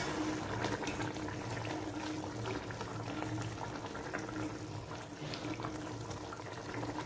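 Watery mutton and tomato curry boiling in a pot: a steady bubbling made of many small pops, the meat being stewed until tender.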